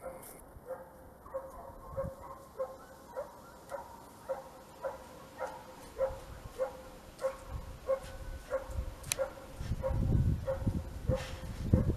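Small dog whining in short, evenly spaced whimpers, about one and a half a second, while hunting prey in a bush. Low thuds and rustling grow louder in the second half, as it stomps its feet at the bush.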